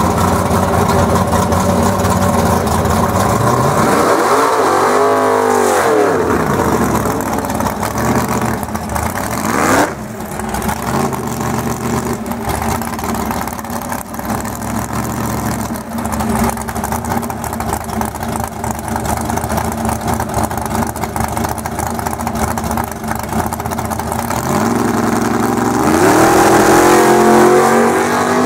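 Drag cars' engines idling at the start line, revved up and back down about five seconds in and again just before ten seconds, then launching and accelerating hard over the last few seconds, the pitch climbing as they pull away.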